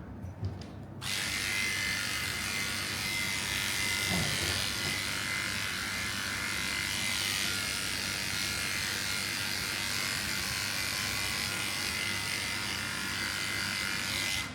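Electric cat-grooming clippers running steadily, switched on about a second in with an even, high-pitched buzz.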